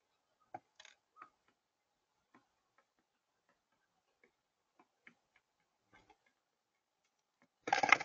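Mourning dove pecking seed on a feeder tray: scattered faint sharp ticks, irregular and a second or so apart. Near the end a loud burst of flapping as a dove beats its wings.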